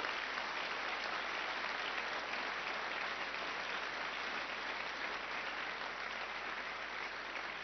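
Audience and panel applauding: steady, sustained clapping that fades gradually near the end.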